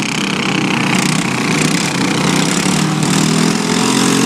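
Small engines of several riding lawn mowers running together, pushing in a demolition derby, with the pitch rising about three and a half seconds in as they rev up.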